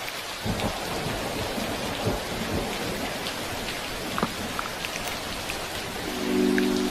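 Steady rain with a rumble of thunder rolling in about half a second in and fading over the next few seconds. Soft sustained music notes come in near the end.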